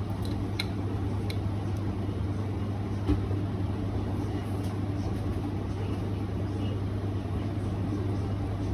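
Steady low background hum, with a few light clicks in the first second and one soft knock about three seconds in.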